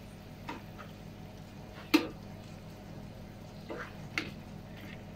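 Metal tongs clicking against an electric skillet as lamb chops are turned, a few sharp clicks with the loudest about two seconds in, over the faint steady sizzle of the chops frying and a low hum.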